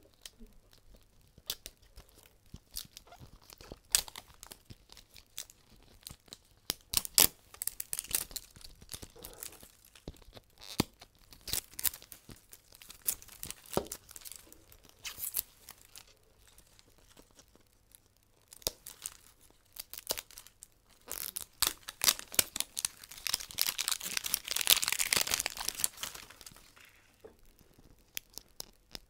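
Plastic wrapping on a toy capsule ball being torn and crinkled by hand: scattered sharp crackles, then a louder stretch of tearing lasting several seconds about two-thirds of the way through.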